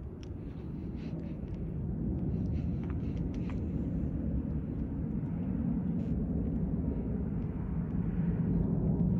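Rolls-Royce Trent 1000 jet engines of a Boeing 787-9 Dreamliner climbing out after takeoff, heard from the ground as a steady low rumble that grows louder as the plane comes overhead.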